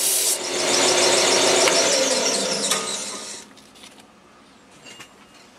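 Metal tube spinning in a lathe with an abrasive pad pressed by hand against its inside edge, a loud scraping squeal. The noise fades and drops away about three and a half seconds in as the lathe stops, leaving a few faint clicks.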